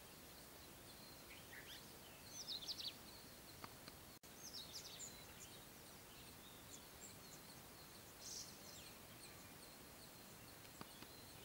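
Faint, quick, high chirps and twitters of small birds in a few short bouts, the loudest about two to three seconds in, over a steady background hiss.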